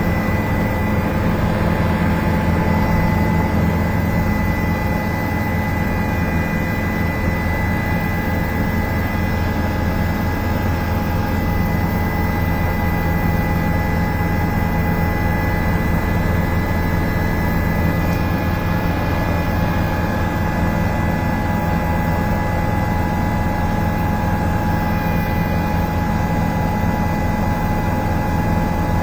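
Helicopter cabin noise in flight: a steady low drone of engine and rotor, with steady whining tones above it, heard from inside the cabin.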